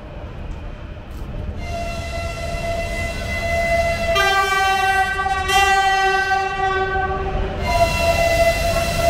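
Train locomotive horn sounding at length over a steady low rumble of a train on the rails. One note starts about a second and a half in, and a lower second note joins it for about three and a half seconds. The first note then carries on alone and grows louder toward the end.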